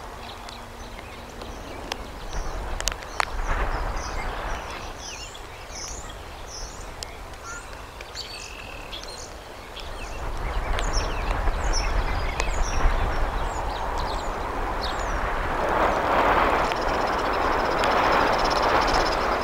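Outdoor nest-cam ambience with wind rumble on the microphone and a series of short, high bird chirps. About halfway through, a louder, steady rustling hiss takes over as the adult bald eagle shuffles down onto the twig-and-grass nest to brood her eaglets.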